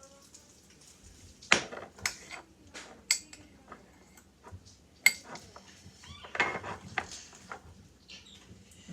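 A fork clinking and scraping against a bowl while stirring slime, with several sharp, separate clinks.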